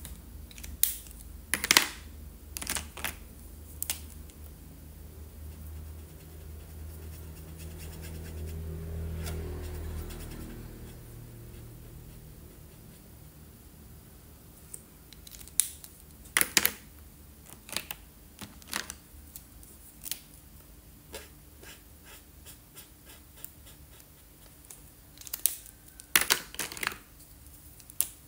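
Felt-tip marker scratching across paper while colouring, with sharp clicks and taps as markers are uncapped, capped and set down, in clusters near the start, midway and near the end. A low rumble swells and fades in the first ten seconds or so.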